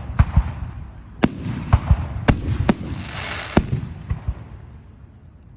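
Fireworks going off: a series of sharp bangs and low booms, with a burst of crackling about three seconds in, thinning out near the end.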